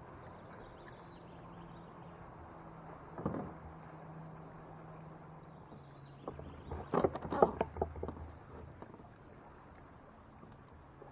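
Knocks and rattles of gear being handled on a fishing kayak: a short clatter about three seconds in, then a louder run of sharp knocks a little past halfway. A faint, low, steady hum runs underneath.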